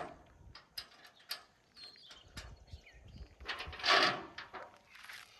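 A metal mechanism worked by hand, with clicks, knocks and short high squeaks, and one louder hissing burst about four seconds in.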